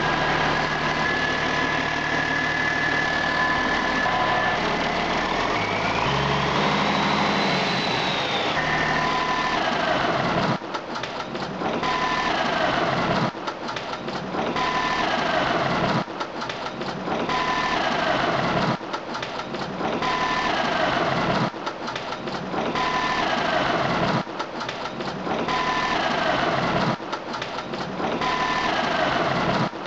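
Caterpillar 3406B inline-six turbo diesel engine running, with a steady whine over it. About six seconds in the pitch rises briefly and falls back. From about ten seconds the sound dips and swells in a regular cycle roughly every two and a half to three seconds, each dip with a short falling tone.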